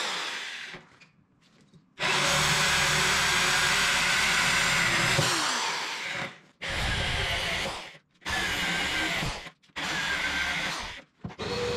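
Corded electric drill boring holes into a solid ash workbench top, running in several spells with short breaks between them, some dying away and some cutting off suddenly. Just before the end a steadier motor sound with a fixed whine takes over, the shop vacuum starting up.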